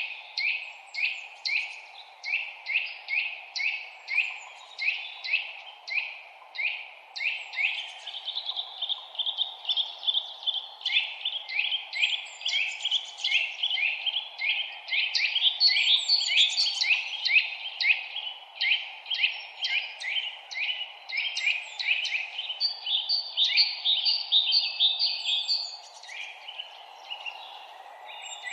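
Songbirds chirping in quick, repeated notes, about two to three a second, with several birds overlapping, over a steady low background hiss.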